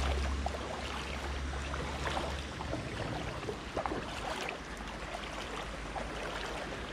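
Footsteps wading through shallow muddy floodwater, sloshing and splashing with each stride in an irregular patter.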